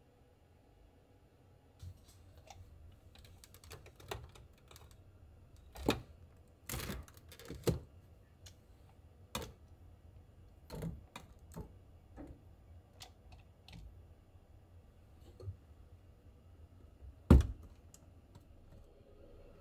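Scattered small clicks, taps and knocks of household items and a long cleaning-tool handle being moved about inside a storage cabinet. One louder knock comes near the end.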